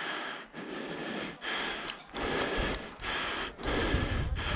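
A person breathing hard and fast close to the microphone, in and out about every second or less. A low rumble joins in about three and a half seconds in.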